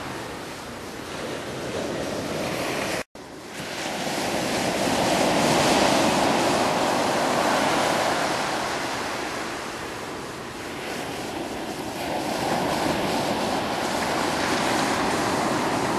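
Atlantic Ocean surf breaking and washing on a beach, a continuous rush that swells and eases. The sound cuts out for an instant about three seconds in.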